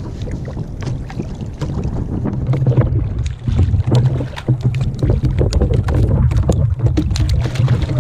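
Wind rumbling on the microphone, with irregular splashing as a hooked narrownose smooth-hound (gatuzo) thrashes at the surface beside a kayak. The splashing gets busier in the second half.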